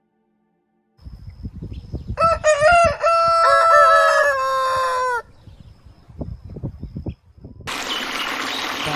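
A rooster crowing once: a few short stepped notes, then a long held note that sags and drops off, over low scuffling knocks. A steady rushing noise starts near the end.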